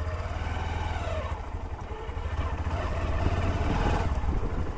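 Motorcycle engine running under way on a bumpy dirt track, its pitch rising and falling with the throttle and growing louder toward the end.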